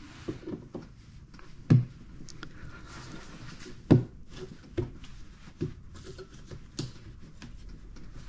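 Handling knocks and rubbing as a metal concealed cabinet hinge is pressed and seated into its drilled cup hole in a wooden cabinet door, test-fitting it by hand. There are about five sharp knocks, the two loudest a couple of seconds apart, over quieter rubbing and clicking.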